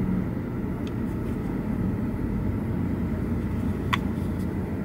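Steady low rumble inside a car's cabin with the car idling, and a faint click about four seconds in as the handheld gimbal camera is handled.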